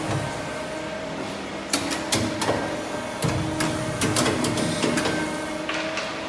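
Shoe-making machine running: a steady hum from its electric motor and hydraulic pump unit, with a string of irregular sharp clicks and knocks from about two seconds in until about five seconds in.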